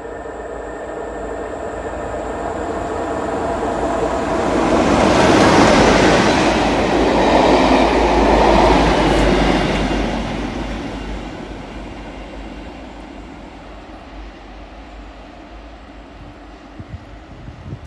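A train hauled by a Class 47 diesel locomotive passes: first the locomotive's engine drone builds as it approaches. Then comes a loud rush of wheels on the rails, loudest for several seconds in the middle, as the Class 47, the Class 117 DMU cars and the Class 57 locomotive go by. The sound then fades away as the train draws off.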